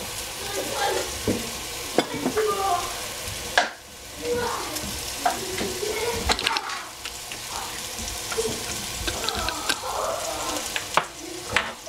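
Food sizzling in hot cooking oil in a pan while being stirred, with a few sharp knocks of the utensil against the pan.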